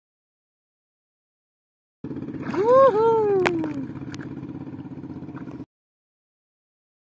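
Silence at first, then a steady engine drone with a man's loud rising-and-falling whoop and a couple of sharp clicks, as a small fish is landed by hand line. The sound cuts off abruptly after about three and a half seconds.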